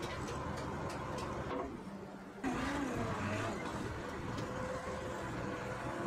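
Sawmill machinery running with a steady mechanical hum and a few knocks; the sound jumps suddenly louder about two and a half seconds in.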